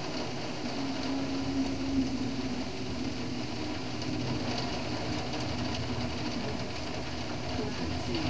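Steady rain over a city, an even hiss flecked with small drop sounds, with a low wavering vehicle hum underneath that is strongest in the first couple of seconds.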